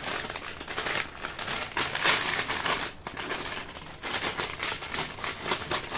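Metallised plastic snack packet crinkling as it is handled and cut open with scissors: an irregular run of crackles.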